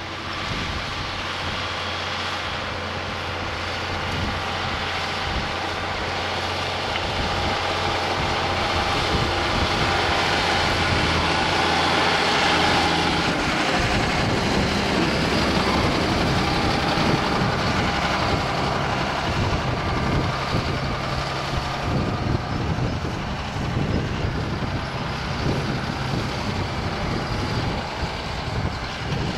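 Farm tractor engine working under load as it pulls a plough, growing louder as it approaches. Its engine note shifts about halfway through, and the sound turns rougher and more uneven after that.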